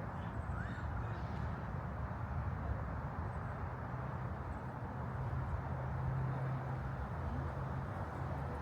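Steady low rumble of distant road traffic, swelling slightly about six seconds in.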